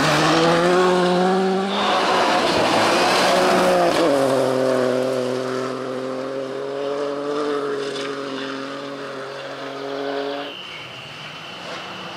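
Rally car engines at high revs on gravel stages, in several cuts. First a Škoda Fabia rally car sliding through a loose-gravel corner. After a cut about four seconds in, another rally car's engine is held at a nearly steady pitch as it comes down a forest stage, and it grows quieter toward the end.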